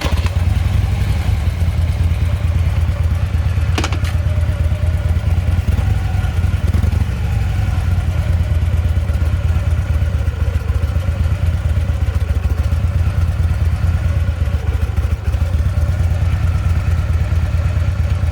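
2009 Harley-Davidson Electra Glide's Twin Cam 96 V-twin running steadily with its low, loping exhaust, with one short click about four seconds in. No compensator clatter is heard: the rattle from the primary compensator is gone.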